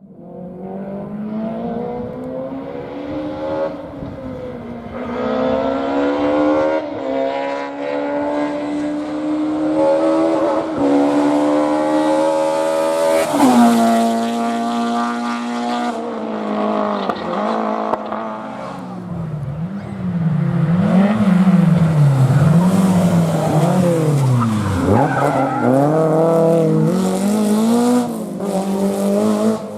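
Historic rally car engine at full attack, accelerating hard through several gears: the pitch climbs and falls back at each upshift. In the second half it revs up and down in quick swings.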